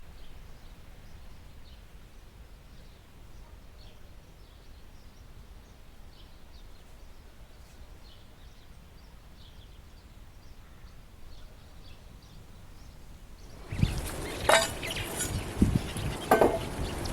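Quiet outdoor background with faint, short bird chirps. About fourteen seconds in, loud rustling begins, with sharp knocks and clinks of something being handled.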